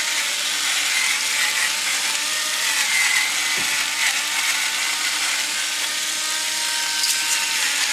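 Electric pepper mill grinding black pepper with a steady mechanical grinding and a faint motor whine, over the continuous sizzle of sliced potatoes frying in butter on a hot electric griddle.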